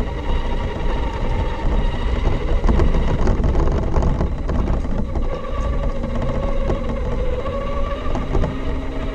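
Onboard sound of a Losi 22S SCT radio-controlled short course truck driving over a concrete path: a steady rumble of tyres and drivetrain, with a faint electric-motor whine that drifts up and down in pitch as the throttle changes.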